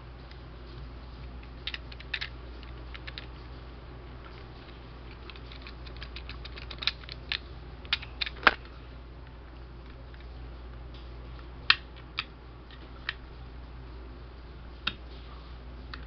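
Scattered small clicks and scrapes as the lashing and wires around a thermal fuse on a fan motor's stator coil are picked at by hand and cut with a utility knife. A cluster of sharper clicks comes around the middle and another pair about three quarters through, over a faint steady low hum.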